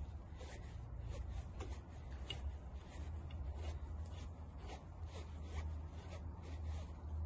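Hex key turning bolts in a metal mounting plate: faint, irregular small ticks and scrapes of the key working in the bolt heads, a few a second, over a steady low hum.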